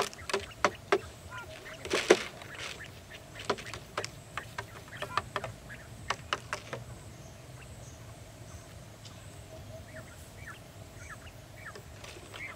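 Quail pecking and scratching at a clear plastic jar trap and its cardboard flap: a flurry of sharp taps and clicks over the first seven seconds, then a few soft, short calls near the end.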